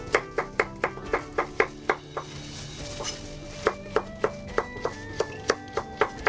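Chef's knife slicing through a raw carrot and knocking on a wooden cutting board in quick, even strokes, about four a second, with a short pause in the middle; background music plays underneath.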